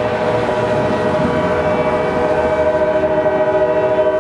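Diesel locomotive's multi-chime air horn sounding a long, steady chord of several notes, held without a break.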